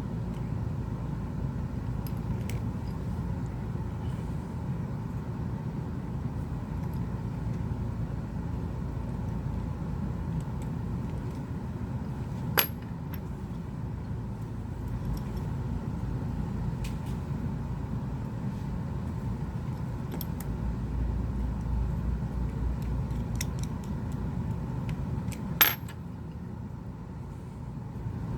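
Small hard clicks and taps of tools and phone parts on a repair bench, with two sharper clicks about halfway through and near the end, over a steady low background rumble.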